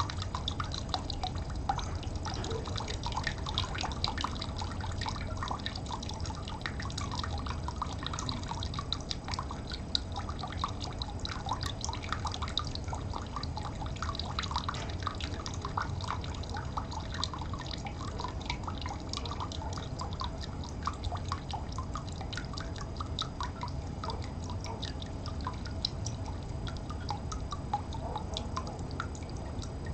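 Water trickling and dripping steadily: many small, quick drips over a low, steady rumble.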